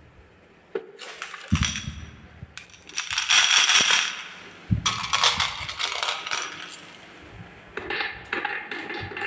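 Marbles rolling and clattering down a wooden marble run, in several rattling bursts of clicks and knocks, loudest about three to four seconds in.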